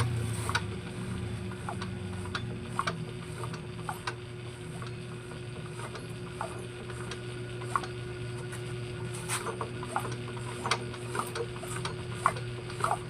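Irregular metallic clicks and ratcheting as the Yamaha Mio i 125's crankshaft is turned over by hand with the spark plug out, to check that the oil pump is sending oil up to the cylinder head. A steady low hum runs underneath.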